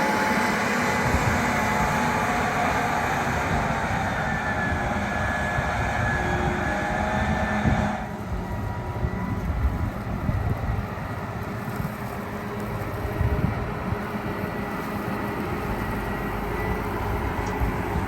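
Harvest machinery running, most likely a combine harvester: a steady mechanical drone with whining tones over it. About eight seconds in the sound changes abruptly to a lower, duller rumble.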